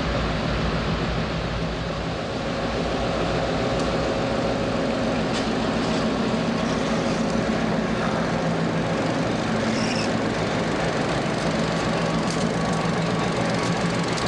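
Reading & Northern CF7 and SW8 diesel locomotives passing close by under load, hauling a heavy train of loaded covered hoppers. Their engines give a steady drone, with a few sharp clicks over it.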